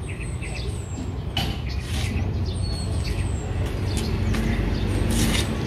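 A steady low rumble with small birds chirping high and repeatedly, and a few brief rustles as a fabric car cover is tugged into place.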